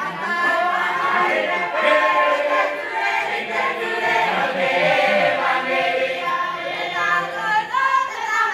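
A large mixed group of men and women singing together as a choir, many voices in harmony.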